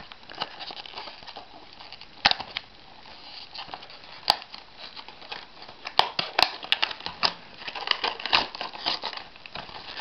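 Clear plastic clamshell packaging crinkling and crackling as it is handled and pried open, with a card insert sliding out, broken by several sharp plastic clicks.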